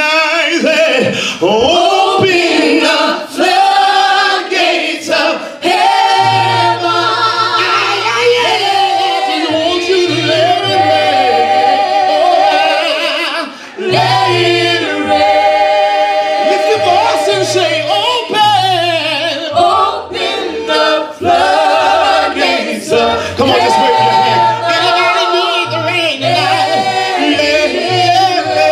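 Gospel praise team of men and women singing together in harmony into microphones. A low bass line comes in under the voices about six seconds in.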